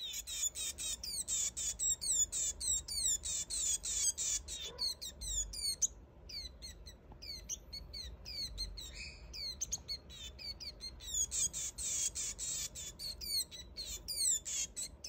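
Young Swinhoe's white-eye giving a rapid series of short, high calls, about three to four a second, each sliding down in pitch. The calls are steady at first, thin out for a few seconds in the middle, then pick up again. They are the begging calls of a hand-fed fledgling, and near the end it gapes at the hand.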